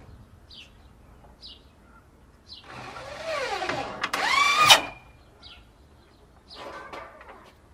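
Small birds chirping in short high notes, a few times and well spaced. About three seconds in comes a louder pitched call lasting about two seconds: it arches up and down, then rises steeply and breaks off.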